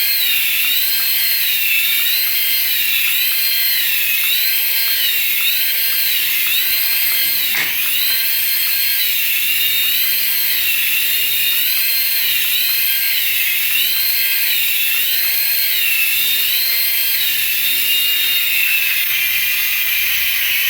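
High-pitched whine from a battery-powered RC toy, wavering up and down evenly about once a second, with one sharp click about a third of the way in.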